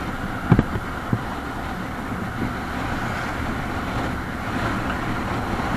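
TVS NTorq 125 scooter on the move, its single-cylinder four-stroke engine running steadily under wind and road noise as it picks up speed. Two short knocks sound about half a second and a second in.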